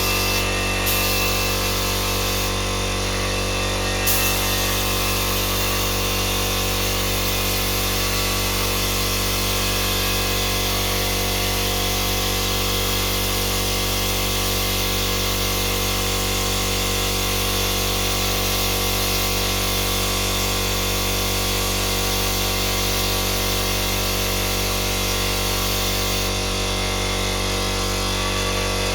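A power tool running steadily without a break, a constant whir.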